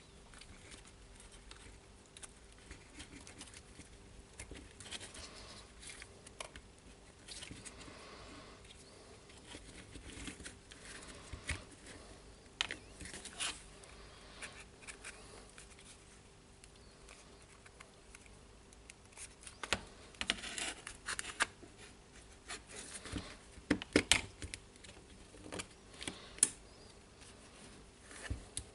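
Handling noise of plastic drill parts: scattered light clicks, scrapes and rattles as a new gear assembly is fitted onto the motor of a Makita DDF483 brushless drill. Sharper clicks come in clusters about twenty and twenty-four seconds in.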